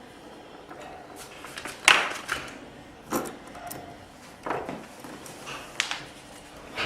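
Small plastic connector parts and hand tools being handled: about half a dozen sharp clicks and knocks, the loudest about two seconds in.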